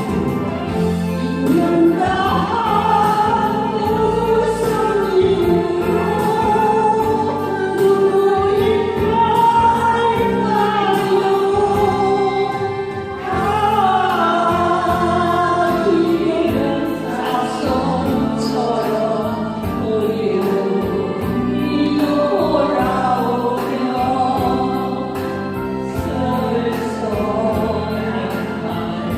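A group of voices singing a slow Korean ballad together in unison over an instrumental backing track, with long held notes.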